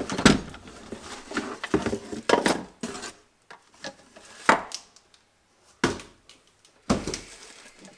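Plastic bottles of a hand-pump brake bleeder knocking and clunking against a wooden workbench and cardboard box as they are unpacked and set down: a string of separate knocks, the later ones about a second or more apart.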